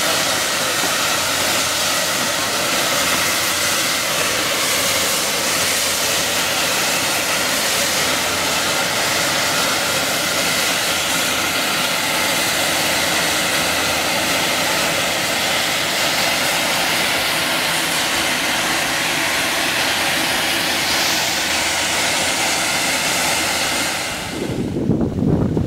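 Steam hissing steadily out of fumarole vents in a thermal crater, a loud, even, jet-like rush. Near the end it gives way to a lower, gusty rumble of wind on the microphone.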